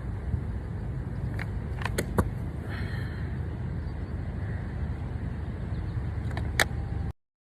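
Skateboard rolling on pavement: a steady low rumble from the wheels, with a few sharp clicks about two seconds in and near the end. It cuts off suddenly.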